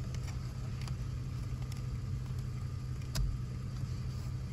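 Tata Nexon's engine idling, a steady low hum heard inside the cabin, with a light click about three seconds in as the plastic cruise-control dial is handled.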